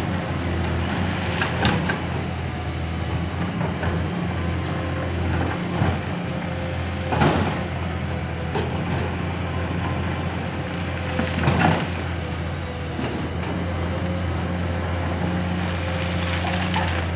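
Komatsu PC210 hydraulic excavator working, its diesel engine running with a steady low drone while the bucket digs among rocks. Three sharp clatters of rock against the steel bucket stand out over it, some four to five seconds apart.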